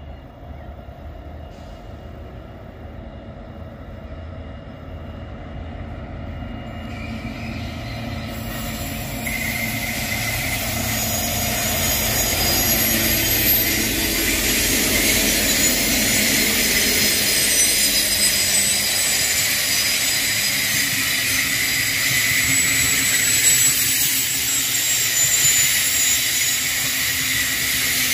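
Diesel-electric freight locomotive approaching, its engine getting louder. The grain hopper wagons then roll past close by with a steady high hiss of steel wheels on the rails.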